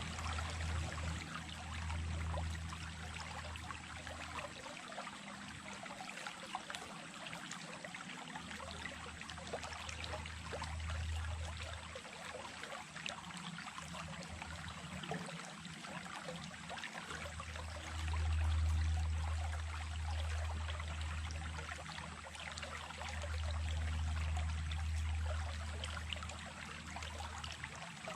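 Stream water running steadily over stones, a continuous rushing and trickling, with a low rumble swelling and fading several times.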